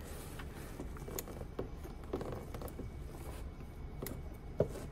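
Light clicks and knocks of a ratchet and oil filter wrench being worked onto the oil filter housing cap, with one sharper knock near the end.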